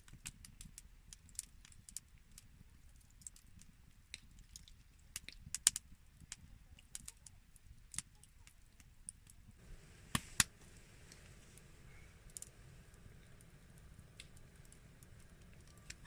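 Wood campfire crackling, with irregular sharp pops and clicks over a low rumble; a soft hiss joins in after about ten seconds.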